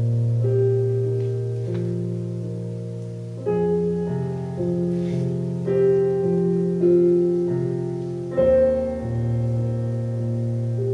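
Slow piano music: notes and chords struck every second or so and left to ring, fading before the next.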